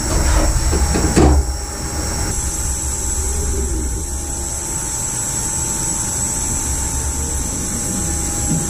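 DMG MORI CTX beta 1250 TC turn-mill machining center running as its milling head swivels. There are a few knocks in the first second and a half, then a steady machine hum with a thin steady tone.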